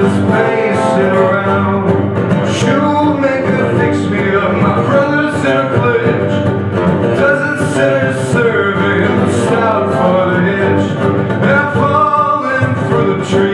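Two acoustic guitars strummed together in a live folk duo performance, a steady full strum with no breaks.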